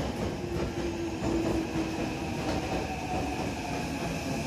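Tokyo Metro 03 series subway train pulling into the platform: wheels rumbling over the rails under a steady motor whine that sinks slightly in pitch as the train slows.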